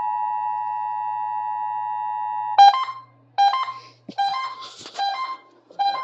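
Emergency Alert System two-tone attention signal, a steady pair of pitches just under 1 kHz received over the radio, marking a monthly required test. It cuts off suddenly about two and a half seconds in, and short sounds follow at even spacing, roughly one every three-quarters of a second.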